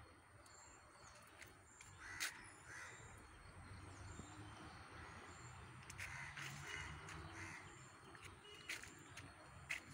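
Crows cawing faintly several times, with a few sharp clicks, the loudest about two seconds in.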